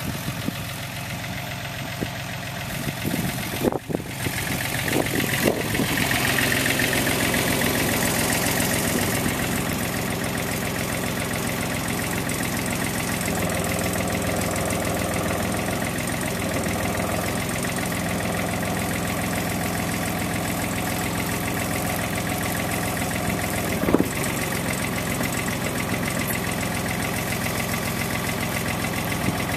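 JCB micro digger's diesel engine running, growing louder about four seconds in as the hydraulics work the bucket, with a single sharp knock later on.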